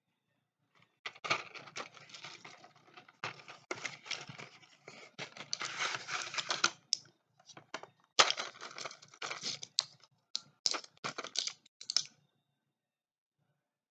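Medicine packaging being handled: a quick, uneven run of clicks, taps and rustles that stops about twelve seconds in.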